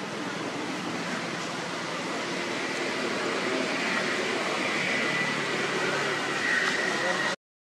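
Steady outdoor background hiss, with a faint high whine joining about halfway through; the sound cuts out abruptly near the end.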